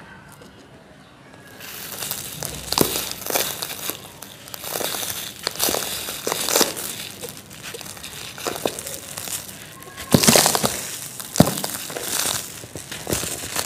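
Dry moulded yellow sand domes crushed in the hands, crunching and crumbling, with loose sand sifting through the fingers. The crunching starts about a second and a half in after a quieter start, and the loudest crunches come near the end.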